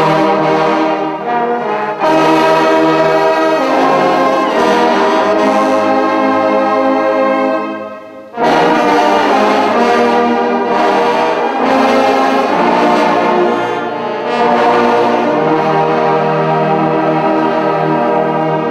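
Large brass band of trombones, sousaphones and other brass playing sustained chords together, with a short break about eight seconds in before the playing resumes.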